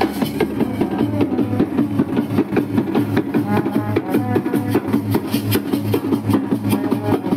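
Music with a quick, steady drum beat and a melody over it.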